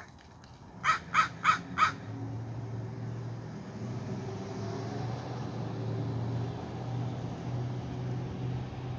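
A crow caws four times in quick, even succession about a second in. A steady low hum follows and runs on.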